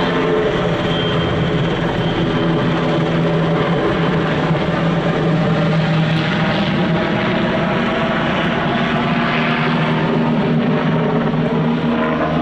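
NH90 military helicopter flying a low display pass, its rotors and twin turbine engines making a steady, loud drone with a constant low hum.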